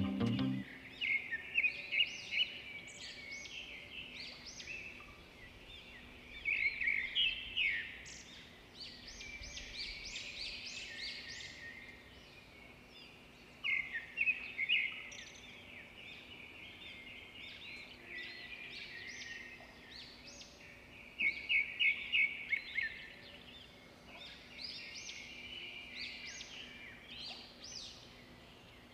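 Small birds chirping, with many short high calls and a few louder, quicker flurries several seconds apart.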